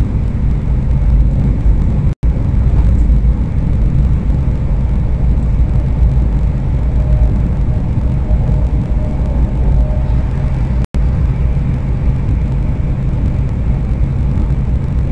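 Steady low rumble and running noise of a high-speed train heard from inside the carriage. The sound cuts out for an instant twice.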